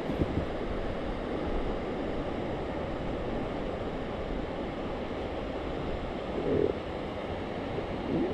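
Rushing whitewater river, with wind buffeting the microphone, and a short thump about six and a half seconds in.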